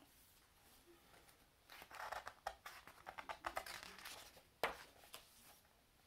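Paper pages of a large picture book rustling and crinkling as they are turned, with one sharp tap a little past the middle.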